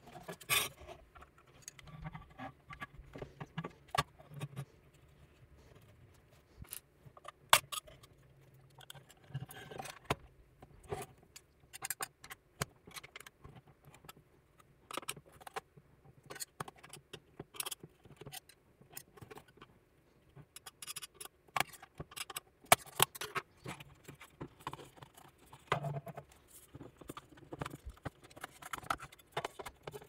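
Metal hand tools clicking, clinking and scraping against a power bar's aluminium and steel case as its press-fitted front plate is pried loose, in quick irregular clicks with a few sharper clacks.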